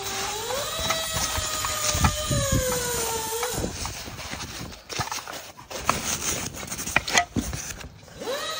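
A sustained whine rises in pitch, then slowly sinks and stops about three and a half seconds in. After that, packing paper and plastic wrap crinkle and rustle, with a few knocks, as parts are unwrapped from a cardboard box.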